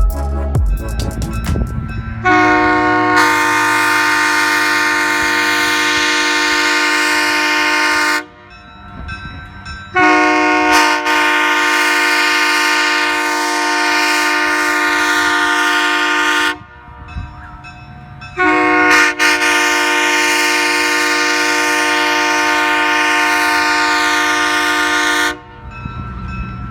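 Nathan Airchime raised-letter K3L three-chime train horn, its #3 bell tuned to 480 Hz, sounded on air in three long blasts of about six to seven seconds each. Each blast holds one steady chord and cuts off sharply.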